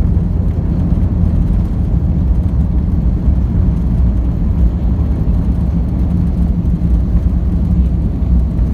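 Steady, loud low rumble inside the cabin of an airliner rolling along the runway after touchdown, from its engines and wheels on the tarmac.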